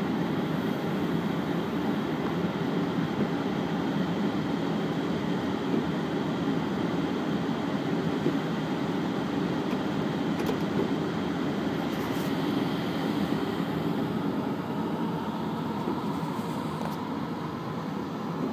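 Steady low mechanical rumble of airport ramp machinery, unbroken throughout.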